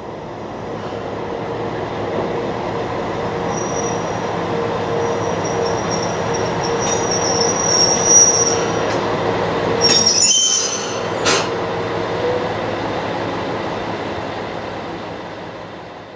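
Heichiku Railway 500-series diesel railcar rolling slowly in and drawing to a stop, its engine running with a steady hum. High wheel squeal from about 3 to 9 seconds in, then a brief burst and a single sharp clank about 11 seconds in.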